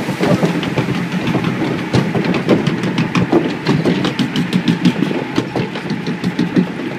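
Log flume ride boat clattering and rumbling along its trough, with a steady low mechanical rumble and many rapid, irregular clicks and rattles.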